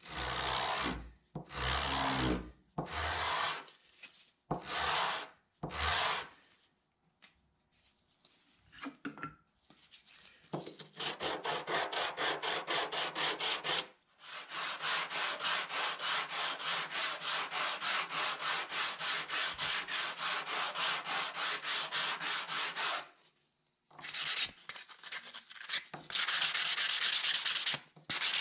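A wooden piece sanded by hand, rubbed back and forth on a sheet of sandpaper laid flat on the bench. A few slow separate strokes come first, then fast, even strokes of about five a second for most of the time, with a short pause before a last burst of rubbing.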